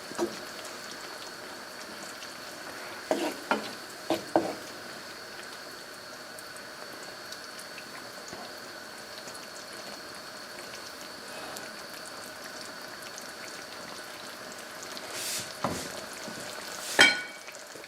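Pan of chicken paprika sauce simmering with a steady bubbling sizzle. A spoon knocks and scrapes in the pan a few times about three to four seconds in, and once more, louder, near the end.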